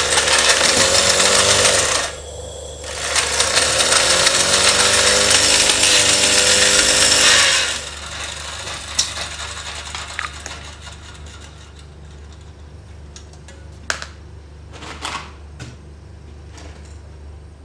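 Wilesco model steam tractor's engine run on compressed air as a function test: a loud rushing hiss of exhausting air with a rapid beat, rising in pitch as the engine speeds up and falling as it slows, in two runs of about two and four and a half seconds. Afterwards, a few light clicks.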